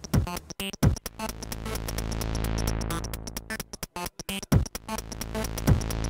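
Electronic background music: synthesizer over a drum-machine beat and a deep, steady bass, chopped into stuttering pulses, with a falling bass sweep about a second in and again near the end.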